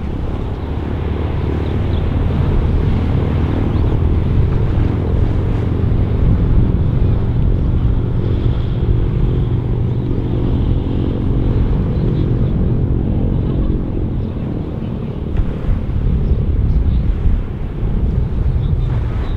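The twin Pratt & Whitney R-1830 radial engines of a Consolidated PBY Catalina flying boat running at taxiing power on the water, a steady drone.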